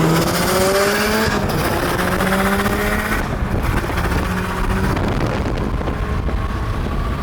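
Volkswagen Golf GTI (MK7) turbocharged four-cylinder accelerating hard through the gears: the engine note climbs, drops at an upshift, and climbs again, three times over.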